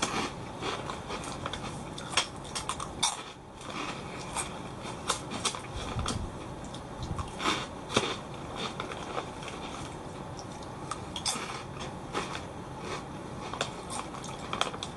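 Crunching of baked prawn crackers, Calbee Kappa Ebisen, being chewed: irregular crisp cracks and crackles, with a few louder crunches.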